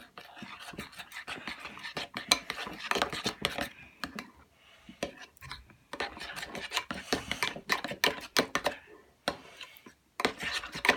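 A utensil stirring and scraping around a bowl of white-glue slime mixture, mixing in food colouring, in quick runs of scrapes with two short pauses, about four seconds in and near the end.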